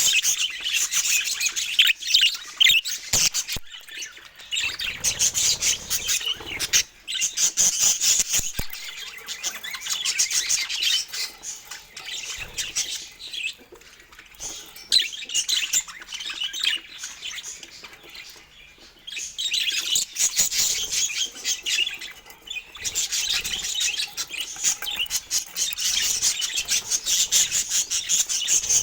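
Pet budgerigars chirping and chattering in a fast, busy stream of high twitters, easing off briefly a few times.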